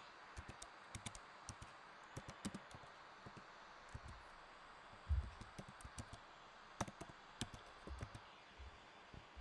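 Faint typing on a computer keyboard: irregular key clicks in short runs, with a low thump about five seconds in.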